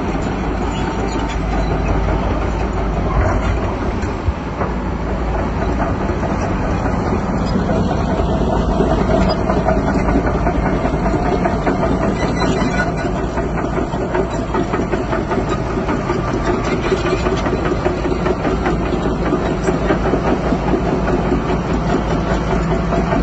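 Crawler bulldozer's diesel engine running steadily under load, with the clatter of its steel tracks.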